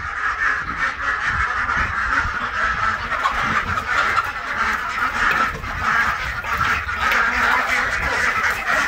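A flock of domestic ducks quacking continuously, many short overlapping quacks running together.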